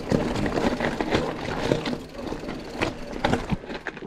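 Mountain bike riding over a rough, stony trail: steady tyre and ground noise with many small knocks and rattles from the bike.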